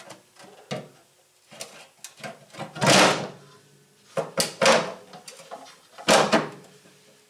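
Brake booster being offered up to a car's firewall and worked into place: a series of clunks and scrapes, loudest about three seconds in and again about six seconds in.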